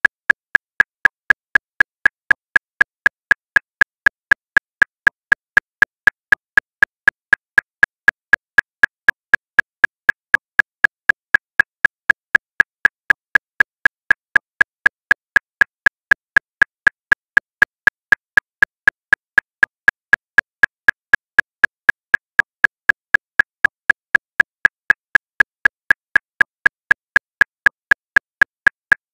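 Metronome clicking at 239 beats per minute: short, high clicks, evenly spaced at about four a second, all alike.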